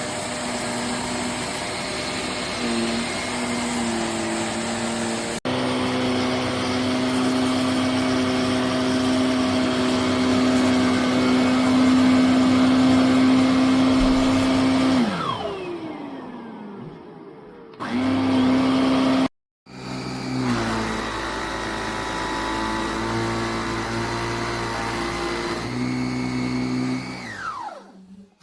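Motor of a VOLUEX Jimmy JV35 handheld anti-mite vacuum running with a steady hum. About fifteen seconds in it is switched off and winds down with a falling whine. It starts again shortly after and is switched off once more near the end, winding down the same way.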